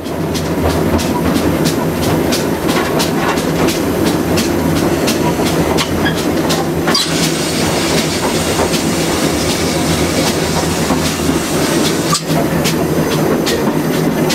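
A steam locomotive running, heard from its footplate: a steady running noise with a rapid clatter of the wheels over the rail joints.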